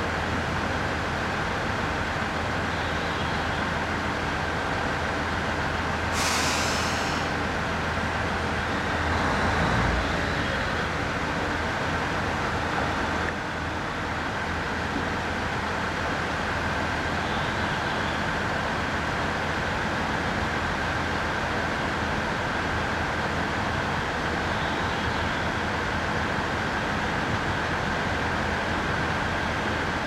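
JR East 701-series electric train pulling away from the platform with a steady running hum. There is a short hiss about six seconds in and a low thump a few seconds later.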